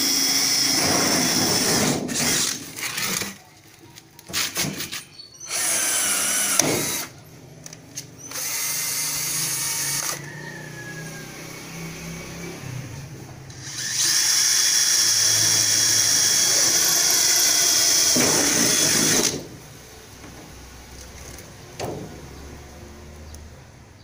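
Cordless drills boring holes through thin sheet steel, in several bursts of a few seconds each, the longest about five seconds long in the second half. Between bursts there is quieter knocking and handling of the metal.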